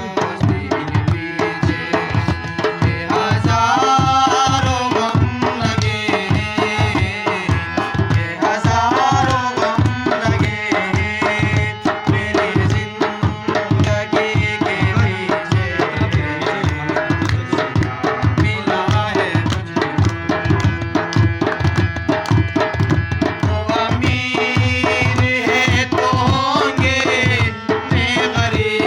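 Instrumental interlude of a ghazal: tabla playing a steady rhythm under a wavering melodic instrument line.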